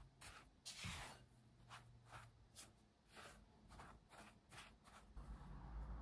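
Silicone spatula stirring shaggy pumpkin bread dough in a glass bowl: soft repeated scraping strokes, about two a second, one of them louder about a second in.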